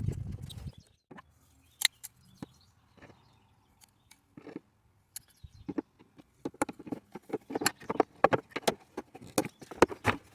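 Irregular clicks, knocks and plastic rattles of hand work with a screwdriver, prying electrical connectors and a hose off the air filter housing of a VW T5 2.0 TDI engine. The clicks come thick and fast in the second half.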